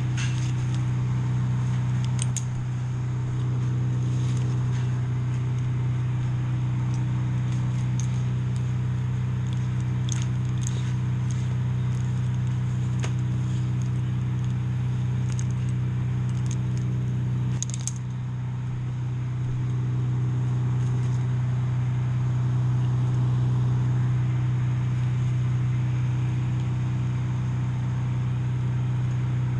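An engine running steadily with a low drone, with scattered small clicks and rattles over it and a brief dip in level about two-thirds of the way through.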